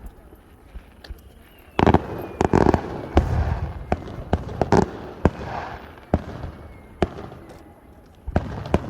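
Fireworks display: a run of sharp bangs from bursting shells with crackling between them, busiest about two to three seconds in, again around five seconds, and near the end.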